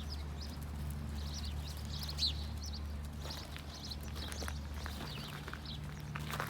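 Small birds chirping in short, scattered calls over a low steady hum.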